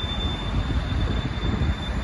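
Sheffield Supertram tram running away along the street track: a low rumble with a thin, steady high squeal from the wheels on the rails.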